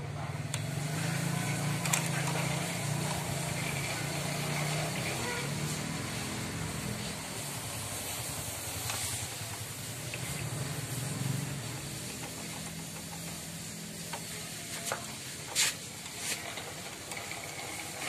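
Light metal clicks of a small wrench and hex key on a motorcycle's clutch cover bolts and linkage, a few scattered ticks with one sharper click near the end, over a steady background hiss and a low hum that fades after about six seconds.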